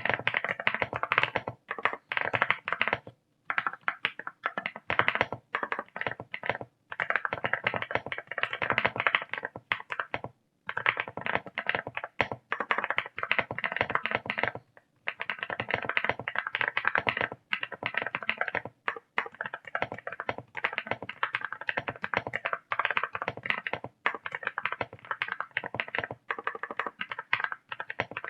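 Fast typing on a mechanical keyboard with a heavy aluminium case: dense runs of quick keystroke clicks, broken by short pauses, about three seconds in, about ten seconds in and near fifteen seconds.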